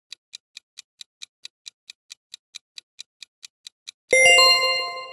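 Countdown-timer clock ticking sound effect, a quick even tick about four or five times a second. About four seconds in, as the countdown reaches zero, the ticking stops and a bright multi-tone chime rings out and fades, marking time up.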